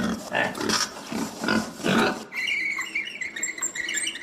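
Domestic pig grunting: a run of short grunts about twice a second, followed for the last two seconds by a fainter, higher-pitched chirping.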